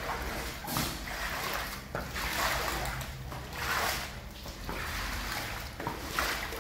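Muddy floodwater on a tiled floor splashing and sloshing as it is pushed along with a cloth-wrapped floor squeegee, in repeated swishes about every second and a half.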